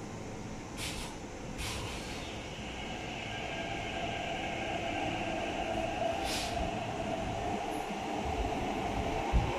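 MTR East Rail Line R-Train electric train pulling away from the platform after its doors close. Short hisses of air come about a second in, again shortly after and once more near the middle. A motor whine builds and gets louder as the train gathers speed, with heavier rumbling near the end.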